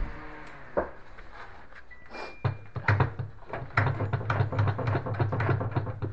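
Washing machine spinning up: a steady low hum sets in about two and a half seconds in, with irregular rattling knocks over it. This is the abnormal spin noise from a screw left unfastened after a door-seal replacement, so parts vibrate loose during the spin.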